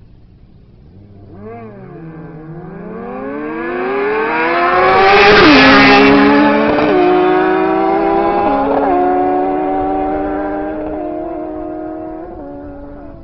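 Two sport motorcycles launching and accelerating hard in a drag race. The engine note climbs in pitch and grows louder as they close in, peaks and drops as they pass about five seconds in, then fades with several stepped drops in pitch as they shift up and pull away.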